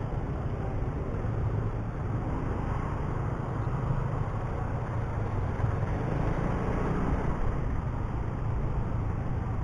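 Motorcycle riding on the road, with a steady low rumble of engine, wind and traffic noise.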